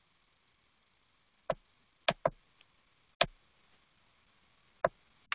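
Computer keyboard and mouse clicks: about six separate sharp clicks, irregularly spaced, as code is commented out in a text editor.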